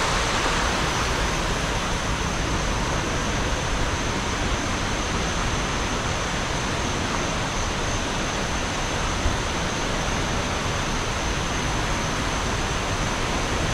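Shallow river rushing over rocks and small rapids, a steady even rush of water that cuts off suddenly at the end.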